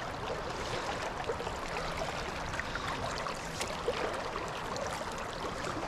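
A small creek's water running steadily, with scattered brief gurgles.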